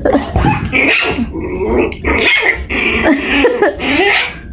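A dog growling and grumbling in a run of pitched, wavering vocal sounds, an angry-sounding complaint.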